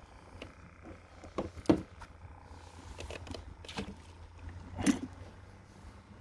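Handling noises: scattered clicks and knocks as a redfish is worked out of a mesh landing net and clamped in a plastic fish grip, over a low steady rumble. The two loudest knocks come a little under two seconds in and just before five seconds in.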